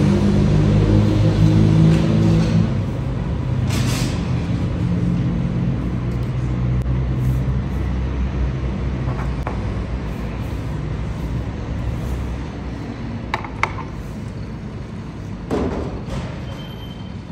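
Background music with low sustained notes, fading out gradually, with a few light knocks.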